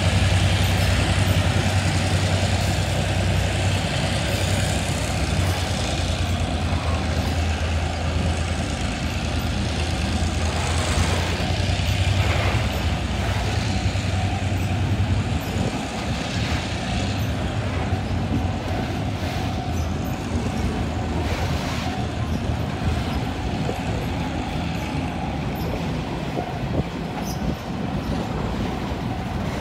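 Freight train of boxcars and loaded flatcars rolling slowly past, a steady rumble of wheels on rail with scattered clanks from the wagons. A low diesel locomotive engine drone underneath fades out about halfway through.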